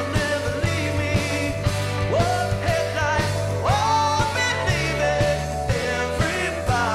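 Live rock band playing: electric guitar, bass guitar and drum kit, with regular drum hits under a melody line that bends in pitch.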